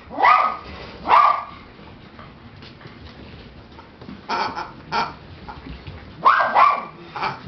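American cocker spaniel puppies giving short, high-pitched barks: two about a second apart at the start, a quick run of them about four seconds in, and more from about six seconds on.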